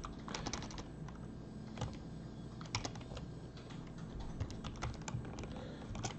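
Typing on a computer keyboard: scattered keystrokes in short irregular clusters with pauses between them.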